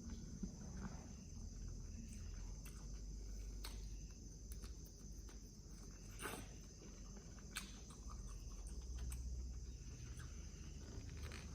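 Faint mouth sounds of someone eating, with a few sharp clicks and smacks scattered through, over a steady high-pitched drone and a low background rumble.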